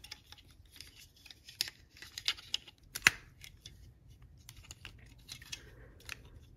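Hard plastic parts of a Master Gundam action figure being handled and pressed together: a scattering of small clicks and rubbing, with one sharp click about three seconds in.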